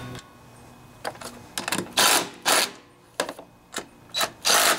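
Cordless drill/driver running in a string of short bursts from about a second and a half in, spinning acorn nuts down onto the mower's recoil starter housing.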